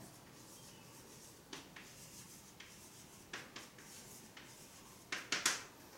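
Chalk writing on a chalkboard: a scattering of short taps and scratches as letters are formed, with a louder quick run of strokes near the end.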